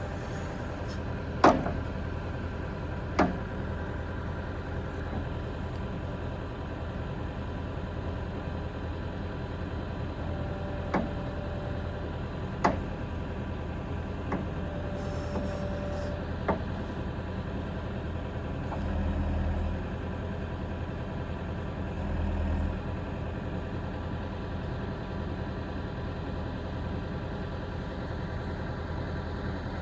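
Akerman EW150 wheeled excavator's diesel engine idling steadily, with several sharp knocks in the first half and two brief swells of deeper engine sound about two-thirds of the way through.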